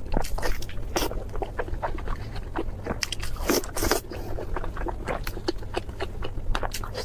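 Close-up crunching and chewing of crispy food: a dense run of irregular crackles and sharp crunches.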